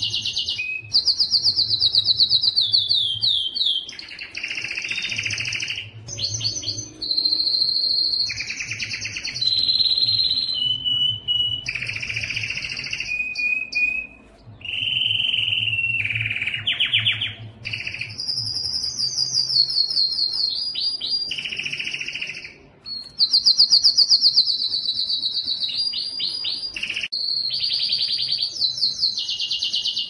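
Canary singing a long, unbroken song of rapid trills and rolls. Each phrase is a fast run of repeated notes held for a second or two before switching to the next, and several of the runs fall in pitch.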